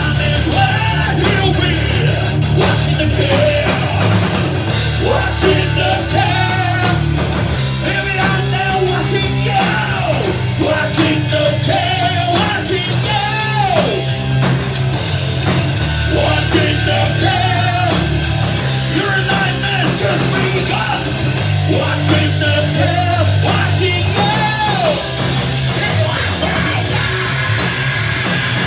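Heavy rock band playing live: distorted guitars, bass and drums, loud and unbroken, with a singer's sung and yelled vocal line sliding over the top.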